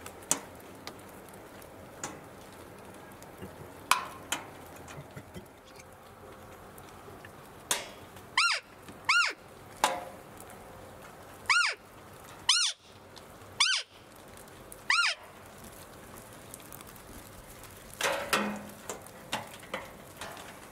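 Six short, high, squeaky whistles, each rising and then falling in pitch, in the manner of a roe doe's 'fiep': the call blown during the roe rut to draw in a buck. Scattered single taps of raindrops sound around them, with a brief cluster of louder rustling and knocking near the end.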